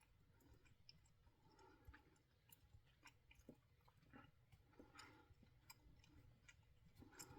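Near silence with faint clicks and soft rubbing: hands handling and pressing tape onto a power cord.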